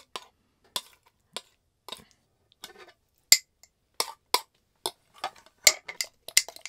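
A run of short, sharp clinks and clicks at uneven spacing, coming faster and with a slight ring near the end.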